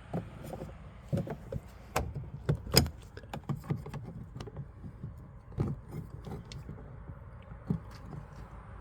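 Irregular small clicks, taps and rattles of hands and a tool working at a plastic clip on a Nissan Navara D40's inside door panel, prying at the trim to pop it out. The sharpest clicks come about two and three seconds in.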